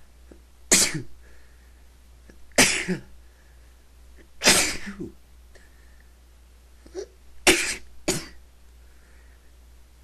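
A person sneezing five times, each sneeze a sharp, sudden burst, spaced about two seconds apart at first, with the last two in quick succession.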